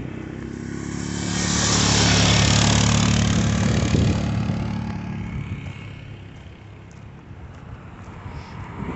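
Four-wheeler (ATV) engine passing by. It builds to its loudest about two seconds in, holds, and then fades away over the following few seconds.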